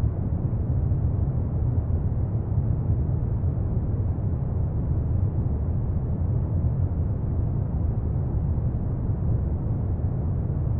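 Steady, deep rumbling ambient noise, like brown noise, unchanging and without breaks; no plucked notes are heard.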